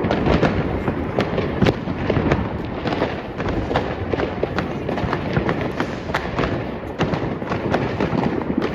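Fireworks going off in a dense, continuous barrage: many sharp cracks and bangs at an irregular, rapid pace over a steady rumble of more distant explosions.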